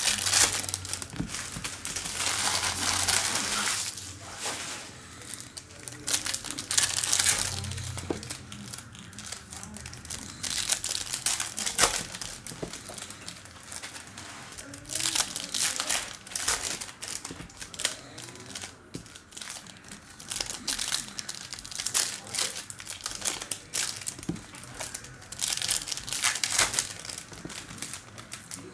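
Wrappers of 2021 Bowman Chrome baseball card packs crinkling and tearing as packs are ripped open and handled one after another, in irregular bursts.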